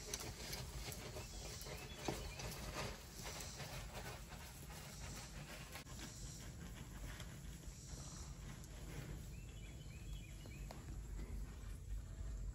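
A herd of cattle walking up, heard as faint hoof steps and rustling.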